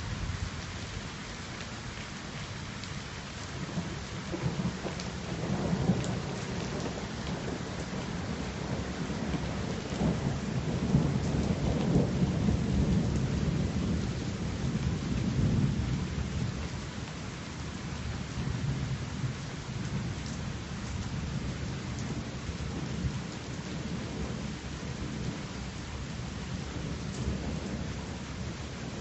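Thunderstorm: rain falls steadily throughout, with thunder rumbling low. The thunder swells about five seconds in and again, loudest, from about ten to sixteen seconds in.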